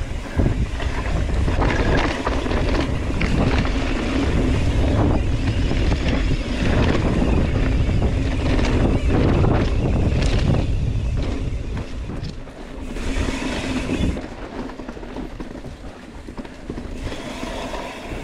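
Wind buffeting the microphone over the clatter of a Yeti SB130 mountain bike descending a steep rock garden: tyres rolling and knocking over rock and dirt, with frame and chain rattling. The rumble is heaviest for about the first twelve seconds, then eases.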